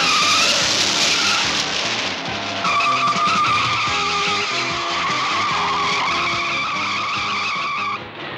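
Car tyres squealing in a long, wavering screech as the car skids, with a short dip a little after two seconds and a sudden stop near the end; dramatic background music plays underneath.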